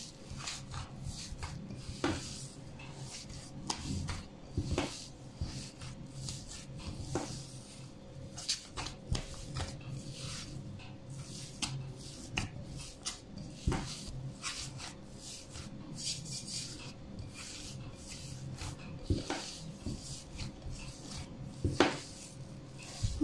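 A hand kneading crumbly cocoa cookie dough in a glass bowl: soft rubbing and squishing with scattered light knocks, over a faint steady low hum.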